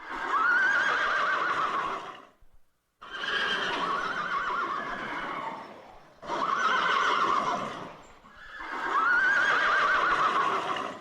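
Horses whinnying four times, each call a warbling neigh about two seconds long, with short pauses between, over the clatter of hooves on a street.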